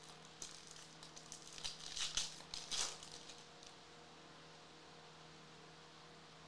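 Stack of baseball trading cards being handled and flipped through, giving a run of short rustling, sliding scrapes of card stock in the first half, loudest about two and three seconds in. A faint steady electrical hum runs underneath.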